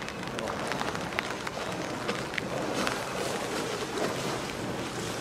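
Steady rain, with scattered single drops ticking sharply on a nearby surface.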